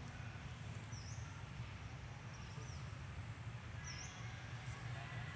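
A bird gives three short, high chirps, about 1, 2.7 and 4 seconds in, over a faint steady low rumble of outdoor background noise.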